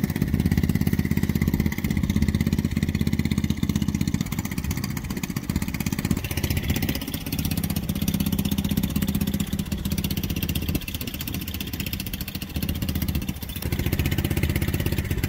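An engine running steadily at idle, a little quieter through the middle stretch.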